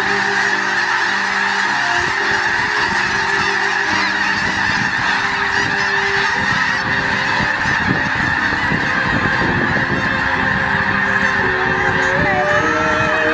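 A large flock of snow geese in flight, hundreds of birds honking at once in a dense, steady chorus.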